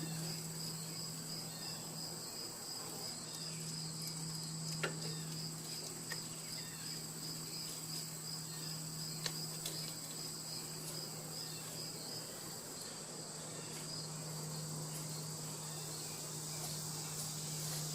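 Crickets chirping steadily in an even, pulsing trill, over a steady low hum. Two or three faint clicks stand out briefly in the middle.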